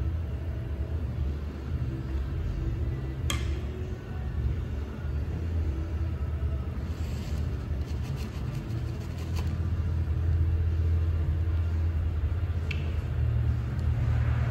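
Steady low rumble of road traffic, with a sharp click about three seconds in and a few lighter clicks later.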